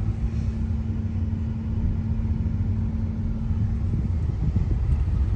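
A car driving on a rough road, with steady low engine and tyre rumble, and a low steady hum that stops about four seconds in.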